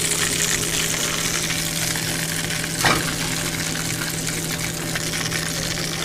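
Hot baked breaded chicken thighs sizzling in their pan just out of the oven, a steady hiss over a steady low hum, with a single click about three seconds in.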